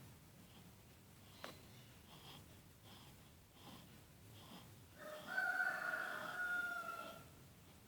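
Newborn baby's faint snoring breaths, a soft rasp about every three-quarters of a second. About five seconds in, a louder drawn-out high-pitched call lasts about two seconds, falling slightly at the end.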